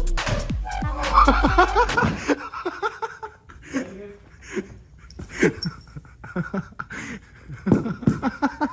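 Music with a heavy bass beat that cuts off about two seconds in, followed by men laughing in short, breathy bursts.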